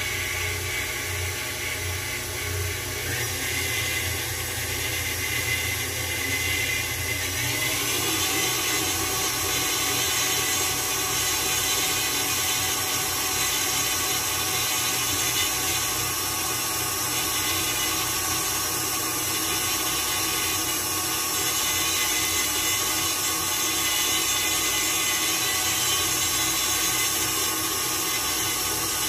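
KitchenAid Ultra Power tilt-head stand mixer running steadily, its beater churning cream cheese, sugar and eggs in a stainless steel bowl. The motor's pitch steps up about seven seconds in.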